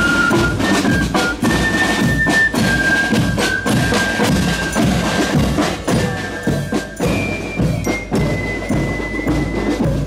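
A marching drum-and-flute band playing on the move: snare drums, bass drum and cymbals beat under a melody of high, held flute notes that steps from note to note.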